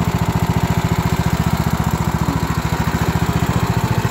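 Kohler Courage engine of a Husqvarna riding lawn tractor running steadily with a rapid even throb, its cracked block welded and stripped mount holes heli-coiled.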